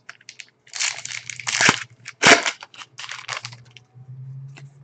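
Trading cards and their packaging handled by hand, giving irregular rustling with a sharp, louder crack a little past two seconds in.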